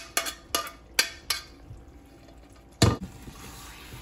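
A cooking utensil clinking and scraping against a pan while mashed eggplant is mixed into masala: four quick clicks in the first second and a half, one loud knock about three seconds in, then a faint steady hiss.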